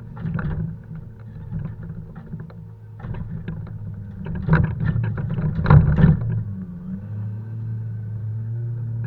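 Logging truck's diesel engine running steadily while poplar logs are unloaded, with a run of heavy knocks and clunks from about three seconds in, loudest near six seconds.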